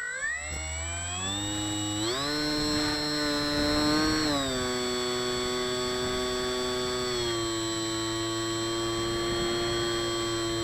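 Bixler 2 RC plane's brushless electric motor and propeller whining as the throttle is changed. The pitch climbs over the first two seconds and steps higher about two seconds in. It then drops back in two steps, around four and seven seconds, holding steady in between.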